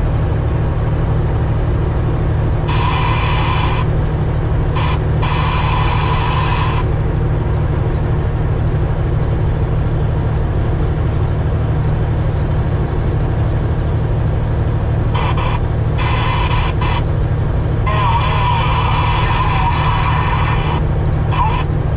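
Semi-truck diesel engine droning steadily inside the cab at highway speed, with road noise. Short stretches of a higher-pitched sound come and go over it, a few seconds in and again in the last third.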